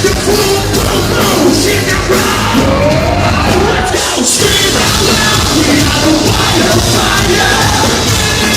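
Live heavy metal music: loud distorted guitars, bass and drums with shouted vocals, recorded from the audience.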